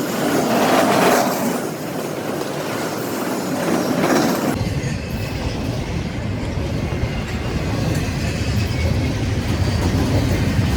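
CSX intermodal freight train rolling past, its cars' wheels running over the rails in a steady loud roar. About four and a half seconds in the sound changes abruptly to a deeper rumble with less hiss.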